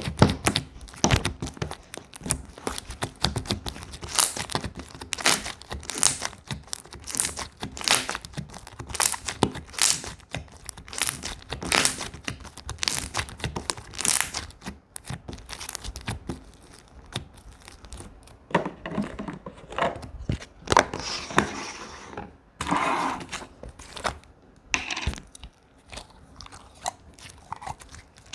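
Slime being squeezed, stretched and pressed by hand, giving a run of irregular crackling pops and clicks that thin out for a few seconds now and then.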